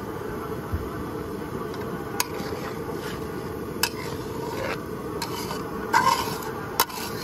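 Steel spatula stirring through watery curry gravy in a metal karahi, scraping and knocking the pan with a few sharp clinks, over a steady low rush.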